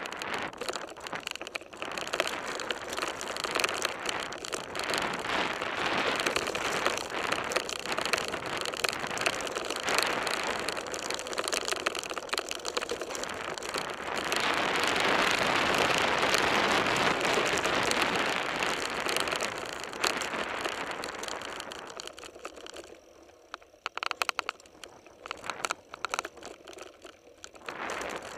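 Mountain bike rolling fast over a dirt and gravel trail: tyres crunching on loose stones with a dense crackle of small rattling clicks, louder for several seconds about halfway through and thinning to scattered clicks near the end.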